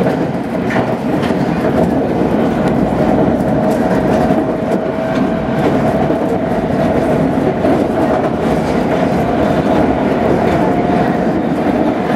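London Underground train running along the track, heard from inside a carriage: a steady rumble of wheels on rail with scattered clicks over rail joints and a steady motor whine that edges slowly up in pitch.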